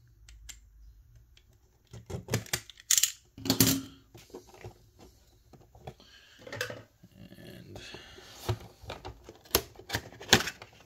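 Hands working on a cardboard display box, with scattered clicks, taps and short scrapes while the tape sealing it is undone.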